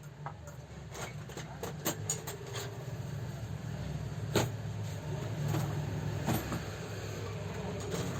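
Steady low hum with scattered sharp clicks and taps, the loudest about four and a half seconds in.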